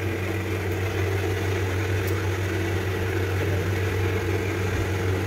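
A steady low mechanical hum, even in level throughout, with a faint click about two seconds in.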